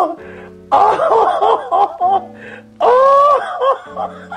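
A woman's loud, high, drawn-out emotional vocal outbursts over background music: a long cry about a second in, a run of short choppy ones after it, and another long cry near the three-second mark.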